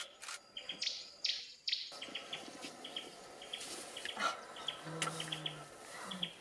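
Small birds chirping repeatedly in the bush, short high chirps several times a second. There are sharp crackles and rustling in the first two seconds and a brief low hum about five seconds in.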